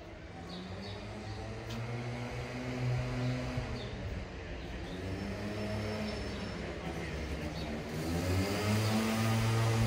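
A motor vehicle's engine running close by, growing steadily louder as it approaches, with its pitch shifting a little as it goes.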